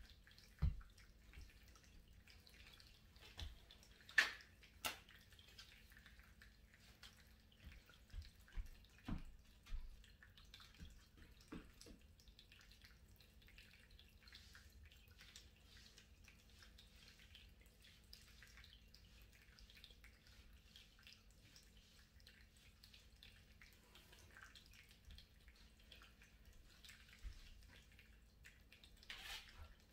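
Near silence: faint room tone with scattered soft thumps and taps of sneakers stepping on an exercise mat, a few clustered near the start and between about 8 and 12 seconds in.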